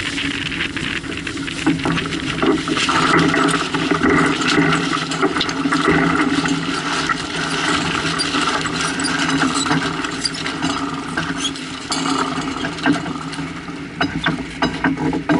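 Sailboat under way: water rushing along the hull and wind on the microphone, with a steady low hum underneath and scattered clicks and knocks from the boat, more of them near the end.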